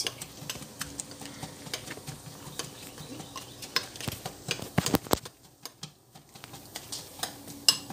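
A metal utensil stirring grits in a glass mixing bowl, with irregular scraping and clinking against the glass; the stirring eases off briefly a little after halfway, then resumes.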